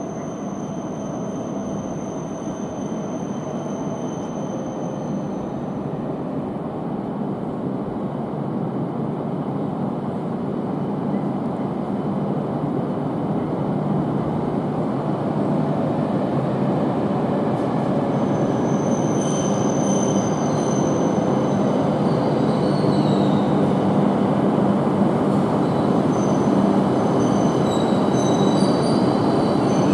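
E5 series Shinkansen train slowly pulling into the platform, its running noise growing steadily louder as it draws near. High-pitched squeals come through as it brakes, most clearly in the last third.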